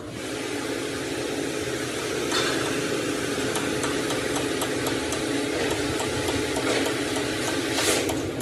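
A motor or engine running steadily, with a few sharp metallic knocks, the loudest near the end.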